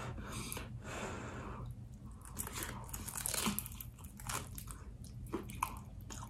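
Close-up eating sounds: crunching bites into a crisp fried chicken pot pie egg roll and chewing, with repeated short crackles of the wrapper.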